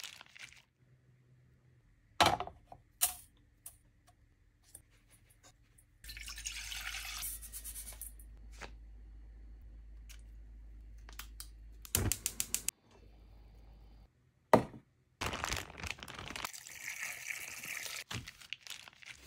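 Kitchen food-prep sounds: liquid sloshing and dripping, scattered sharp clicks and knocks, and a steady hiss for several seconds in the middle.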